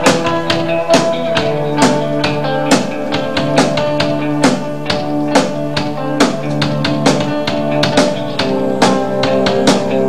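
Rock band playing an instrumental passage: a drum kit keeps a steady beat of sharp hits under held keyboard and electric guitar chords and a bass line.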